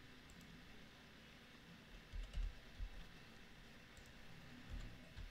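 Faint computer keyboard keystrokes and mouse clicks while a number is typed into a field: a few soft taps about two seconds in and again near the end, over quiet room noise.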